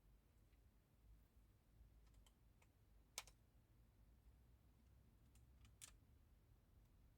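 Near silence with sparse, faint clicks of small tools and phone parts being handled on a bench, one sharper click about three seconds in and a few more just before six seconds.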